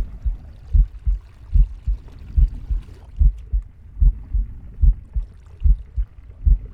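Heartbeat: a steady lub-dub of paired low thumps, about 75 beats a minute.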